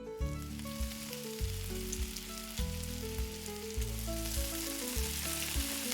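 Simple children's background music, a stepping melody of held notes over a repeating bass, with a steady hiss laid over it.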